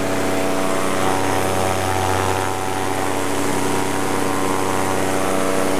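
Paramotor engine and propeller running at a steady throttle in flight, heard from the pilot's seat as a constant, even drone.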